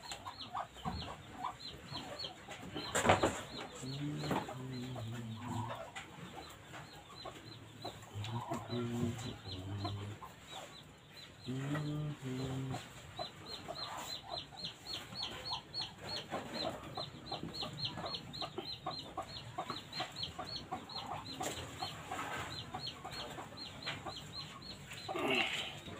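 Chickens clucking in short pitched calls, with one sharp knock about three seconds in and a run of small ticks in the second half.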